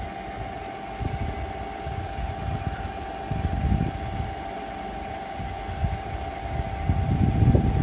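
Lapidary flat-lap polisher's motor running with a steady whine, its diamond grit pad spinning. Wind buffets the microphone with a low rumble that grows stronger near the end.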